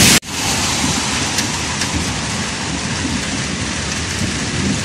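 Heavy tropical downpour pouring onto a wet street and pavement: a dense, steady hiss of rain with a few faint ticks of single drops.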